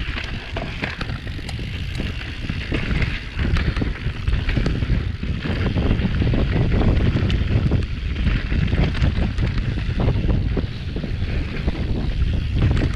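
Mountain bike riding fast downhill on a loose, dusty dirt trail: wind buffeting the action-camera microphone, tyres hissing over dirt and gravel, and the bike rattling and knocking over rough ground.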